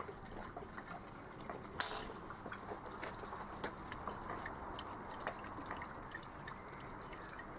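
Olive oil dribbling from a glass bottle onto fish on foil: a faint trickling with scattered small drip ticks, and one sharper tick about two seconds in.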